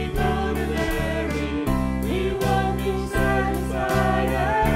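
Contemporary worship song played by a band with a steady beat and sustained chords, with a voice singing the melody.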